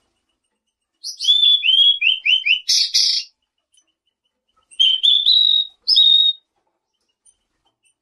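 A songbird known in Indonesia as selendang biru singing two phrases. The first is a quick run of about five short downslurred whistles ending in a harsh, rasping note. About a second later comes a few clear whistles that step up in pitch and are held.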